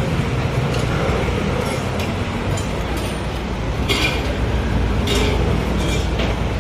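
Steady street traffic rumble with several short, sharp clinks of tableware in the second half.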